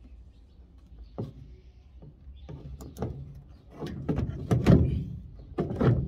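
Plastic drain pump housing of a top-loading washing machine knocking and scraping against the machine's base as it is pushed back into place: a run of irregular clunks, loudest toward the end.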